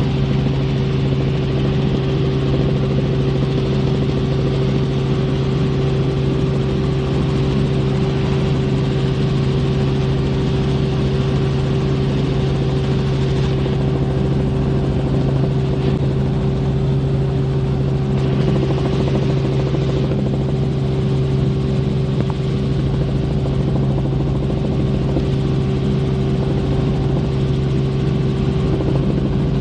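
Helicopter in flight, heard from on board: a steady engine and rotor drone with a low hum and a higher hum over it.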